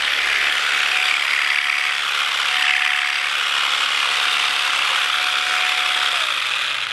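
Jigsaw (Vybe) percussive massage gun running at its top speed, a loud steady mechanical rattle like a machine gun, switched off near the end.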